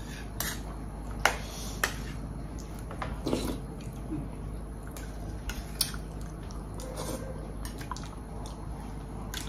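Close-up eating sounds: wet chewing and lip smacks, with a handful of sharp mouth clicks scattered through, over a steady low hum.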